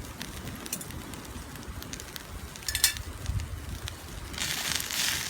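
Wood campfire crackling with scattered small pops and one sharper snap about three seconds in; a steady high hiss rises near the end.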